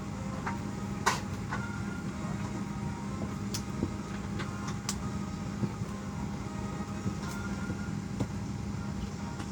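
Steady hum of an airliner cabin during boarding, with a low drone. Scattered sharp clicks and knocks sound over it, the loudest about a second in.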